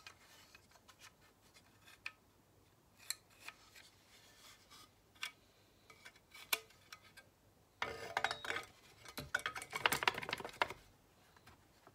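Plastic engine cover of a Stihl TS350 cut-off saw being handled and pressed into place: scattered light clicks and knocks, then about three seconds of denser plastic rubbing and clattering near the end.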